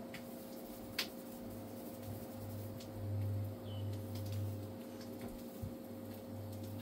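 A steady low hum with a deeper rumble that swells and fades every second or so, and one sharp click about a second in, with a few fainter ticks later.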